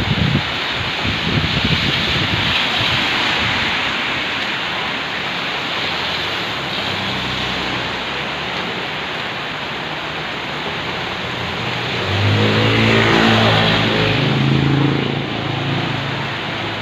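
Heavy rain pouring steadily onto a street and pavement, a dense even hiss. About twelve seconds in a motor vehicle's engine swells for about three seconds as it passes, the loudest moment, then fades back under the rain.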